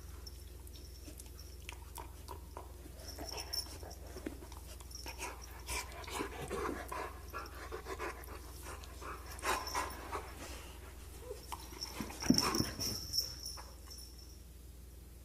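Puppies panting and whimpering in short, irregular bursts, with light scratching and shuffling; the loudest burst comes about twelve seconds in. The whining is typical of a puppy upset at being separated from its littermate.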